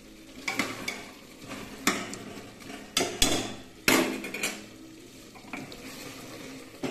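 Metal ladle stirring curry in an aluminium pressure cooker: scraping, with several irregular sharp clanks as it knocks against the pot and the stove top.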